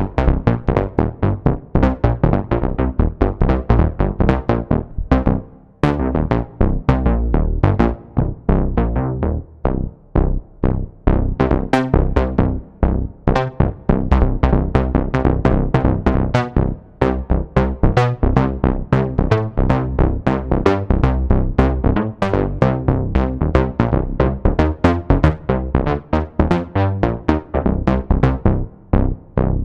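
Expressive E Osmose 49 synthesizer playing a fast electronic pattern of short, plucked-sounding notes over deep bass, with a brief break about five and a half seconds in.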